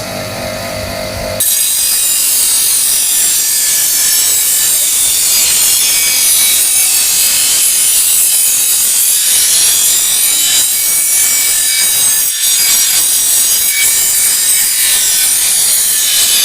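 Electric grinding machine: the motor hums on its own, then about a second and a half in metal is pressed to the grinding wheel. A loud, steady grinding hiss follows, lifting off briefly twice in the second half.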